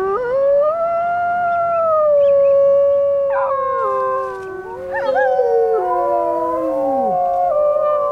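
Arctic wolves howling. One long howl rises at the start and holds steady, then other wolves join about three and five seconds in, their howls overlapping and sliding down in pitch.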